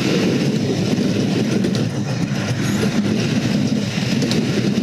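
Wooden roller coaster train running over its track, a loud steady rumble and rattle of the wheels, heard from a seat on board.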